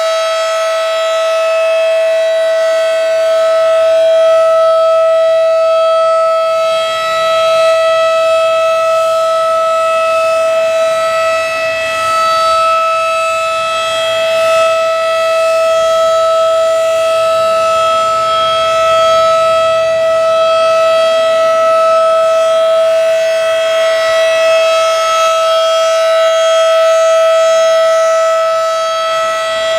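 Federal Signal 2001-DC outdoor warning siren sounding one steady, unchanging tone with only slight swells in loudness, during a scheduled monthly siren test.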